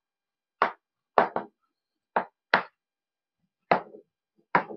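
Chalk knocking and scraping on a chalkboard as words are written: about seven short, separate taps, some coming in quick pairs.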